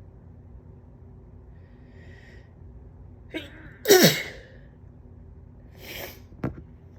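A person sneezing once, loudly, about four seconds in, with softer breathy sounds just before and a couple of seconds after. The sneezer is congested, with one nostril clogged, and hopes these are morning allergy sneezes rather than the start of a cold.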